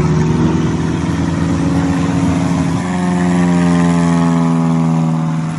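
Single-engine light aircraft piston engine and propeller droning as the planes fly low and close. About three seconds in the sound changes to a louder, closer plane passing by, its pitch sinking slightly as it goes.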